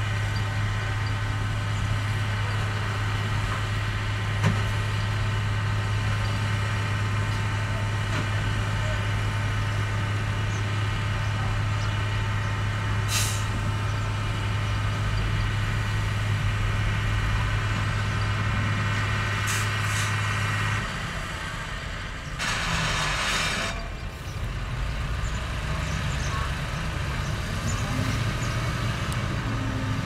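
Heavy diesel earthmoving machinery running steadily with a strong low hum, the hum dropping away about two-thirds of the way through. A second or so later comes a short burst of air hiss, a dump truck's air brake releasing.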